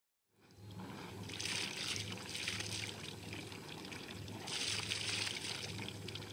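Water lapping and trickling against a boat's hull, swelling in hissy surges three times, over a steady low hum.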